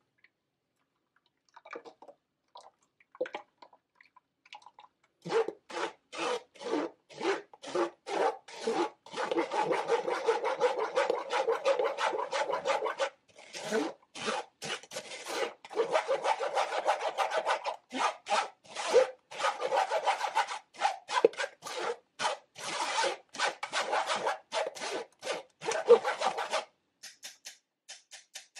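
A metal spoon scraping wet pulp against a stainless steel mesh strainer, pressing the juice through. It goes in fast back-and-forth strokes, in runs with short breaks, and stops shortly before the end.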